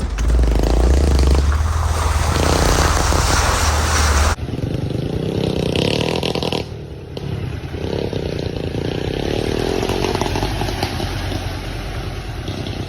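Off-road vehicle engine running over rough trail ground, with a loud low rumble that changes abruptly about four seconds in, then steady engine sound.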